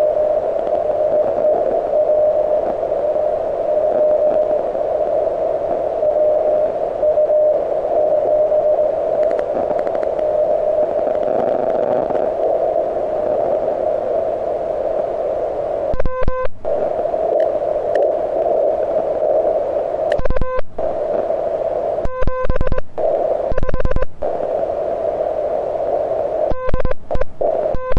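HF band static from a QRP CW transceiver, with a weak received Morse signal keying on and off in the hiss and fading in and out. A little past halfway, the rig's own sidetone starts keying Morse as the operator sends, and the static drops out between the characters.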